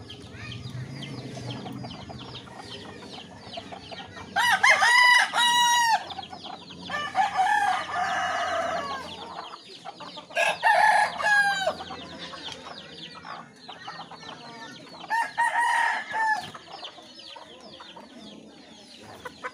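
Roosters crowing, four crows of one to two seconds each spread through the first two thirds, over steady faint chirping and clucking from the flock.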